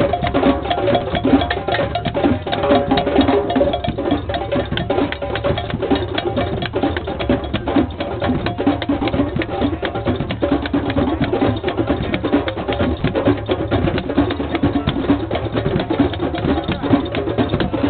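Drum circle: many hand drums playing together in a fast, steady rhythm of dense strikes.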